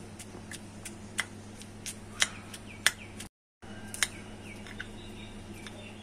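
Metal spoon clinking and scraping against a small glass bowl while mashing Mexican mint leaves: irregular sharp clinks, roughly one every half second, some ringing briefly, over a steady low hum. The sound cuts out for a moment a little past halfway.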